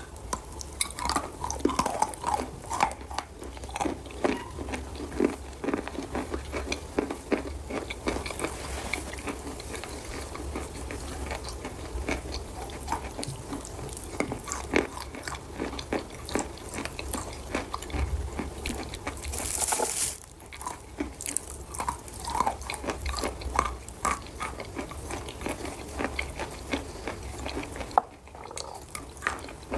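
Close-up crunching and chewing of wet red chalk: a dense run of irregular crisp bites and crackles, with a brief rustling hiss about two-thirds of the way through.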